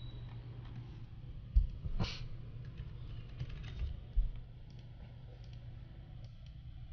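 Typing on a computer keyboard with mouse clicks while searching a chat app, over a steady low hum. A few short dull thumps stand out, the loudest about a second and a half in and about four seconds in.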